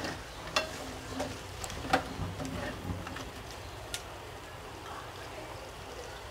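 Metal spatula stirring and scraping chicken pieces in a metal kadai, with a few sharp clinks against the pan in the first four seconds, over a steady sizzle from the hot pan.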